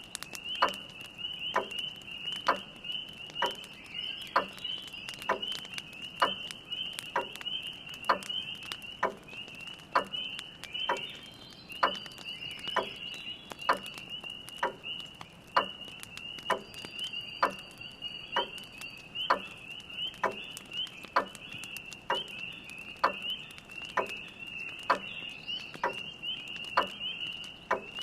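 Grandfather clock ticking steadily, about one tick a second, over a continuous high-pitched chorus of spring peepers and the faint, irregular crackle of a wood fire.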